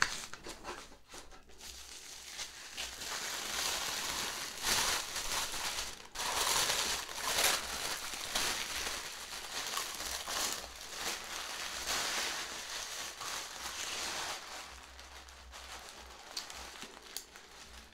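Crinkling and rustling of packaging as hands rummage through a box, a continuous crackle that grows louder a few seconds in and eases off near the end.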